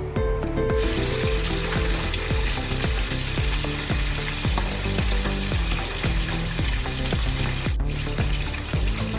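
Background music with a steady beat, over a steady cooking hiss from the pot of soup on the gas stove. The hiss comes in about a second in and breaks off for a moment near the end.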